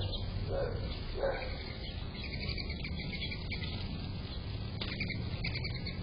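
Small birds chirping and twittering in quick high bursts, with a dog barking three times in the first second or so, over a low steady hum.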